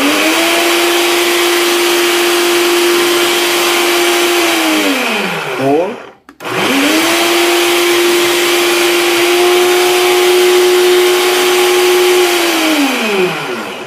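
Blokker BL-13103 blender motor running at a steady pitch while blending chopped greens, then switching off about five seconds in and winding down with a falling pitch. It starts again a moment later, runs steadily, and winds down the same way near the end.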